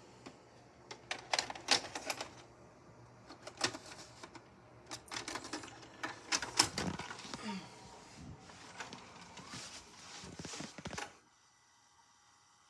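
Irregular plastic clicks and clattering of a VHS cassette and its case being handled. The clicks stop suddenly about eleven seconds in and give way to a faint steady hum.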